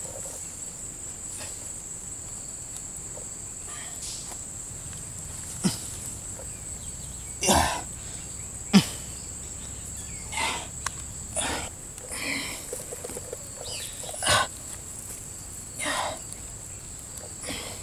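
Hands tearing and rummaging through the fibrous rot inside a split palm trunk, giving scattered rustles and a few sharp snaps, the sharpest about nine seconds in. A steady high-pitched insect drone runs underneath.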